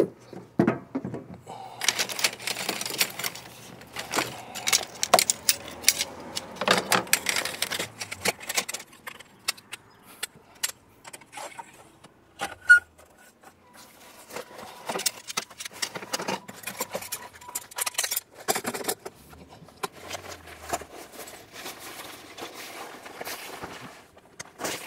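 A portable awning being unpacked and set up: its fabric rustling and swishing as it is handled and unfurled, with quick clicks and clatter from its poles throughout.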